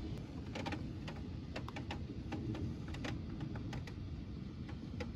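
Scattered raindrops ticking irregularly against glass, about twenty sharp ticks, over a low steady rumble.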